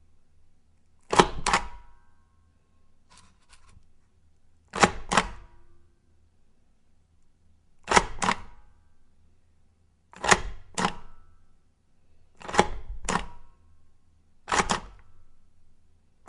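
Hand stamp being brought down onto paper again and again, each stamp a sharp double clack, repeated every two to three seconds.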